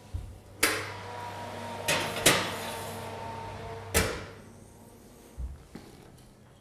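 Stainless-steel range cooker being handled: four sharp metallic clicks and clunks in the first four seconds, then a softer thump, as its oven door is worked by the handle.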